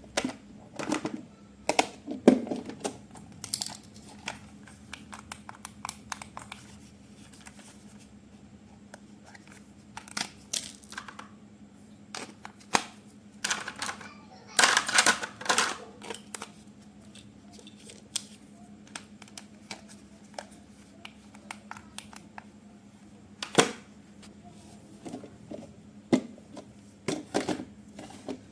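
Hands handling toy packaging and plastic parts: scattered clicks and taps with bouts of crinkling, the longest about halfway through, over a faint steady low hum.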